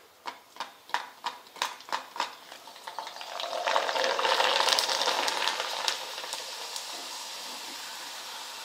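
Tomato papad deep-frying in hot oil in an aluminium kadai: a few sharp ticks and crackles at first, then a loud sizzle that swells about three seconds in as the papad is pressed under the oil with a wire skimmer, easing off gradually as it puffs up.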